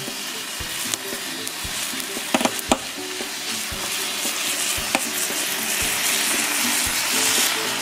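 A slice of bacon sizzling steadily on a hot steel fire plate (plancha ring) over a wood fire, with scattered sharp pops. The sizzle shows the plate is hot enough to fry.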